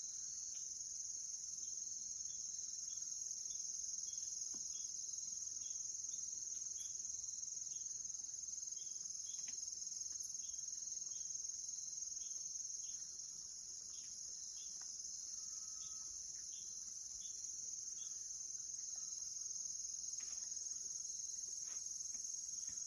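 Steady high-pitched chorus of insects, with a softer chirp repeating about twice a second.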